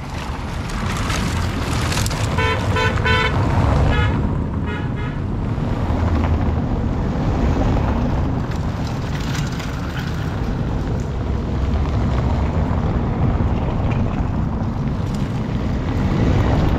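A vehicle horn tooting in rapid short beeps, in two runs about two and four seconds in, over a steady low rumble of wind and passing vehicles; a car drives close past near the end.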